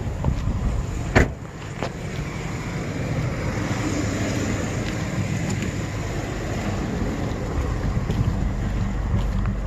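Ford Ranger pickup driving, its engine and road noise heard as a steady low rumble inside the cab, with a single sharp knock about a second in.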